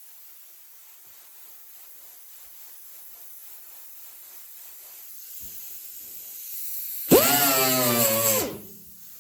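A small grinder with a 36-grit Roloc sanding disc runs in a short burst of just over a second, about seven seconds in, as the hood's welds are ground down. Its whine rises as it spins up, holds, then drops away as it winds down, with a hiss over it.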